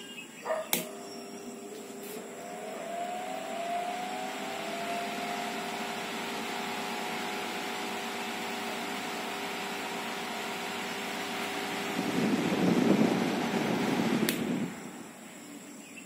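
Lazer small table fan switched on with a click of its rotary knob; the motor runs up with a rising whine, then hums steadily. Near the end a louder rough noise lasts about two seconds, followed by another click, and the sound drops.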